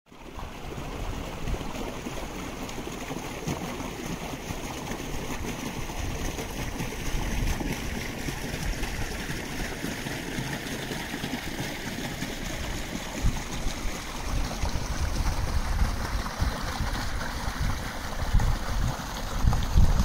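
A brook of running water babbling steadily, with heavier low surges in the last few seconds.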